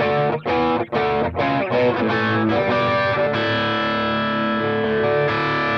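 Electric guitar played through the Mooer Red Truck's distortion channel with its gain turned down to about 9 o'clock: a run of short, choppy chord stabs, then a chord left ringing from about three seconds in.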